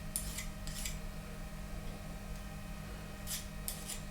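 Hand file rasping over the edge of a freshly machined screw to deburr it: two short strokes at the start, a pause, then about three quicker strokes near the end.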